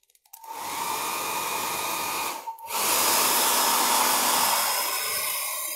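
Hair dryer running on a wet watercolour painting to dry it. It starts about half a second in, drops out briefly about two and a half seconds in, then comes back louder and steady.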